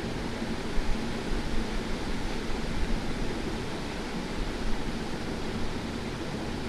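Steady background hiss with a faint low hum, broken by a few soft taps.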